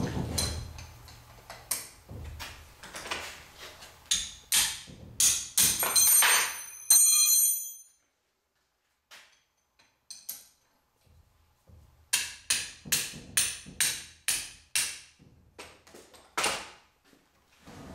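Hammer tapping on metal to shock loose the tight cylinder (jug) bolts of a Yamaha YZ250 two-stroke engine. Sharp strikes, some ringing, then a pause, then a quicker run of about a dozen taps at roughly three a second.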